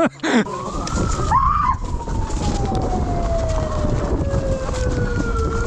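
A siren tone climbs briefly in pitch in the first second, then slowly winds down over the next four seconds, over a steady low rumble.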